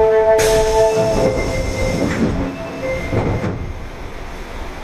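Tanimachi Line subway car with a Hitachi GTO inverter running: the inverter's chord of steady whining tones cuts out about a second in, as a rush of noise starts. What remains is the train's rolling rumble, slowly getting quieter.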